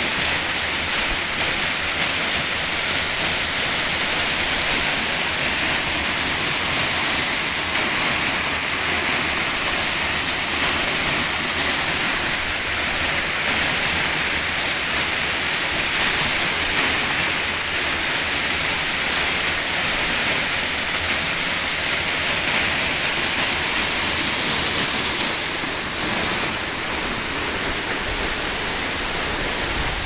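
Waterfall swollen with spring snowmelt runoff, pouring down a steep rock face: a steady, loud rushing hiss that eases slightly near the end.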